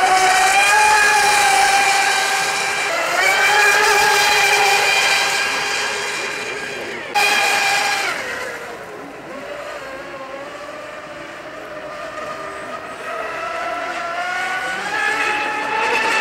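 Radio-controlled racing boat's motor running at high speed, a high-pitched whine that shifts up and down in pitch as the boat runs across the water. It breaks off abruptly about three and seven seconds in, fades lower and quieter for a few seconds, then climbs again near the end.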